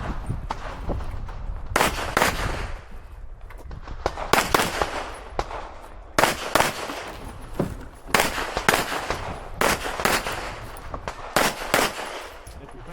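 Competition pistol fire, a 2011-style handgun shot in quick pairs of about two shots a second, with gaps of one to two seconds between the pairs as the shooter moves between targets. The pairs are double taps, two hits per paper target.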